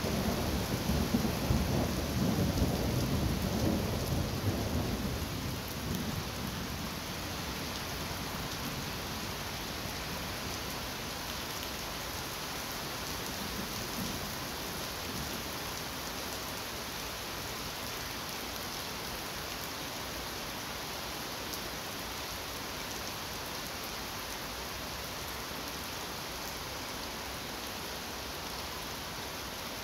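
A roll of thunder rumbling and fading away over the first five seconds or so, then steady rain.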